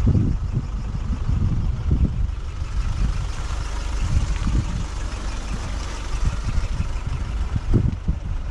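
Pickup truck driving on a rough farm track: engine and road noise with irregular low bumps and knocks.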